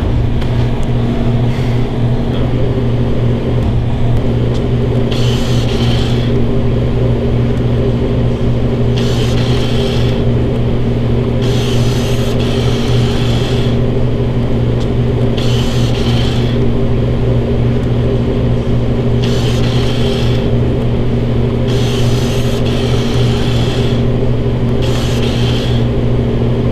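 Steady low mechanical hum with a few overtones. A brief hissing swell comes and goes every three to four seconds.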